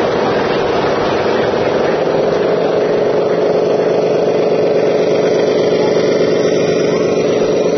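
Radio-controlled Scania 8x8 dump truck running as it drives slowly, a steady engine-like drone whose pitch rises slightly about two and a half seconds in and then holds.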